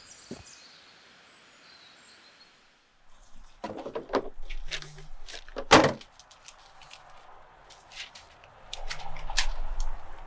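Faint birds chirping, cut off abruptly about three seconds in; then a run of handling clicks and knocks with one loud thump, like a door, a little past the middle.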